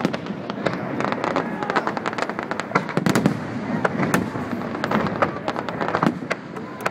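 Aerial fireworks bursting overhead one after another, with dense crackling and sharp reports several times a second.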